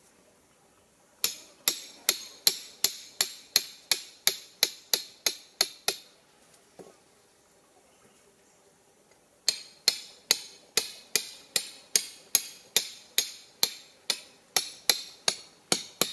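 Hatchet head hammering steel rebar stakes into the ground: sharp, ringing metal-on-metal strikes about three a second, in two runs with a pause of a few seconds between.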